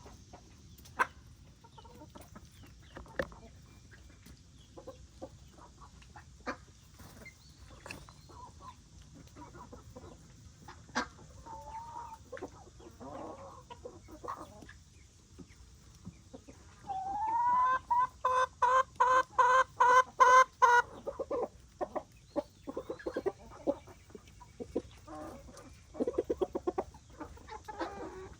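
Domestic chickens clucking, with scattered short pecking clicks as they eat. A little past halfway comes one loud, long call that rises at its start and lasts about four seconds, followed by a run of quick repeated clucks.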